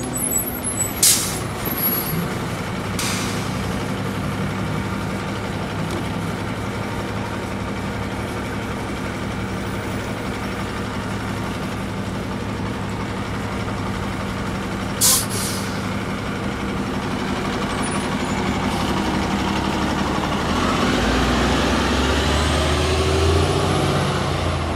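Orion V transit bus idling at the stop, a steady engine hum broken by short sharp hisses of air from its brakes about a second in and again about fifteen seconds in. Near the end the engine gets louder and rises in pitch as the bus pulls away, with a high whine rising and falling.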